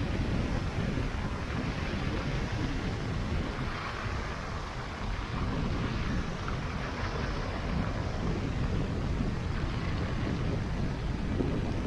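Steady low rumble of a vehicle on the move, with wind buffeting the microphone and a continuous hiss of noise over it.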